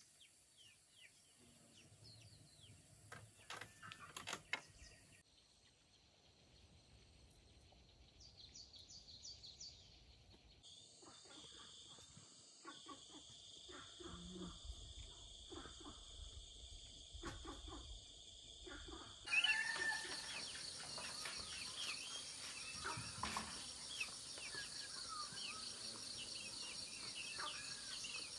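Outdoor rural ambience: a steady high-pitched insect drone with scattered bird chirps. The drone changes suddenly in pitch and loudness a few times, and is loudest in the last third. A few light knocks come in the first half.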